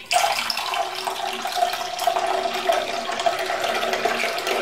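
Water pouring in a steady stream from a plastic jug into a glass bowl of thin green chutney, splashing into the liquid; the pour starts suddenly.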